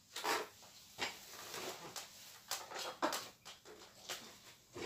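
Handling noises: irregular rustling and soft knocks as trays and objects are moved about on a cloth-covered table.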